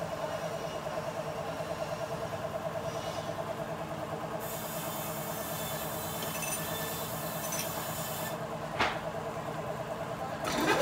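Band sawmill running with a steady mechanical hum and an even pulsing, with one short knock about nine seconds in.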